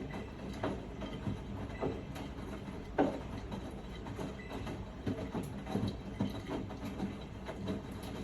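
Miele front-loading washing machine drum turning with laundry in it: a steady low rumble with repeated thuds about every two-thirds of a second, one louder about three seconds in.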